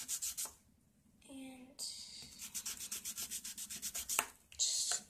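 Nail file rasping back and forth across a fingernail in quick, even strokes, several a second, with a short pause about half a second in.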